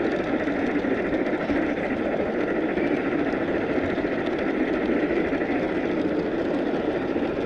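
Steady running noise of a large-scale model train rolling along its track, heard from a camera riding on the train: an even rumble with no distinct pitch.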